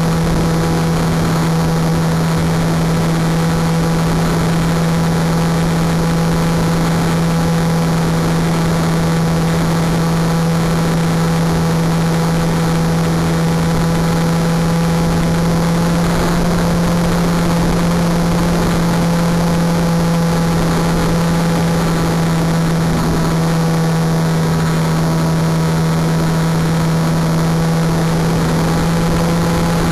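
Wing Dragon 4 radio-control plane's motor and propeller running at a steady, unchanging pitch, a continuous drone over a rushing noise.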